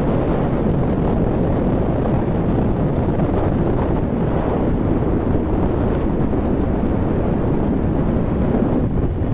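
Steady wind noise buffeting the microphone of an action camera on a Kawasaki Z1000 motorcycle at riding speed, with the bike's running noise mixed underneath.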